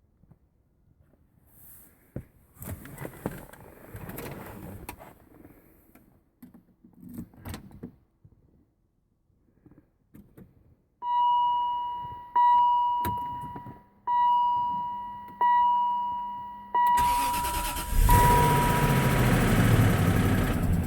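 Handling knocks and rustles, then a repeating dashboard warning chime, one decaying ding about every second and a half. Near the end the Range Rover's 4.4-litre BMW M62 V8 cranks and starts, and its running becomes the loudest sound.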